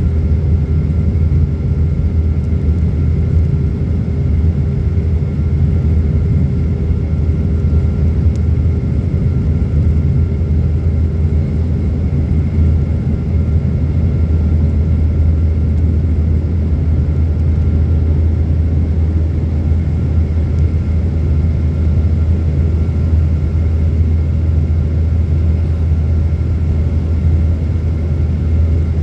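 Boeing jet airliner heard from inside the cabin in flight: a steady, loud low engine rumble with a few faint steady hums above it, unchanging throughout.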